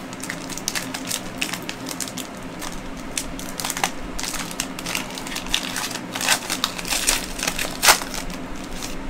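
Panini Prizm Draft Picks trading card pack being torn open, its shiny wrapper crinkling and crackling in the hands in an irregular run, with the loudest crackle near the end.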